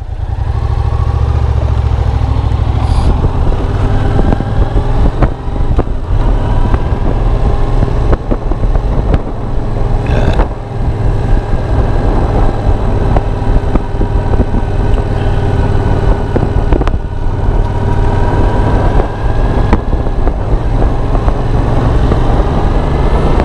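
Yamaha FZ-07's parallel-twin engine running steadily on the road, with a heavy rumble of wind buffeting the microphone underneath. The engine note climbs slowly in pitch near the end.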